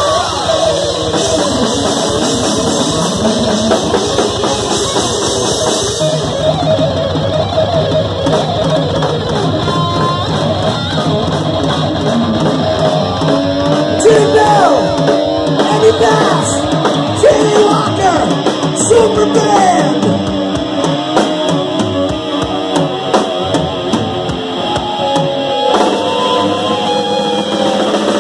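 Live rock band playing loud through amplifiers: electric guitars, a drum kit and a singer. Through the middle a lead line bends up and down in pitch.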